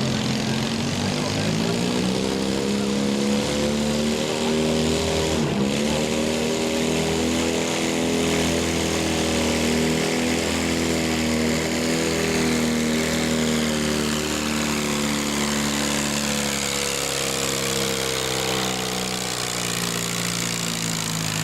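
Modified riding lawn mower engine at high revs under load during a pull. It dips sharply and briefly about five seconds in, holds high again, then winds down near the end.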